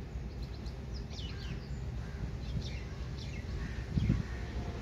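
Birds chirping in short, quick, falling calls over a steady low rumble, with a dull thump about four seconds in.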